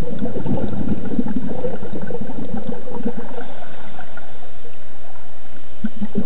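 Scuba diver's exhaled bubbles gurgling past an underwater camera: about three seconds of dense bubbling, then a quieter spell with sparser bubbles before the next exhale starts.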